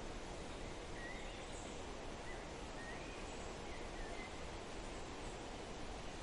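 Steady forest wind, with a few faint short bird chirps between about one and four seconds in.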